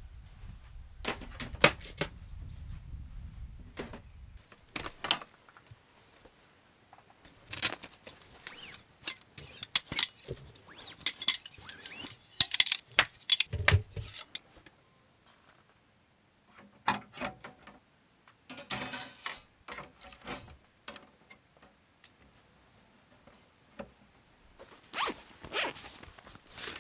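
Handling noises in several bursts separated by quiet pauses: zipper-like rasps, clicks and light knocks. A low rumble runs under the first few seconds.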